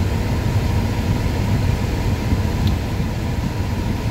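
Steady low rumble of an idling truck engine, heard from inside the cab.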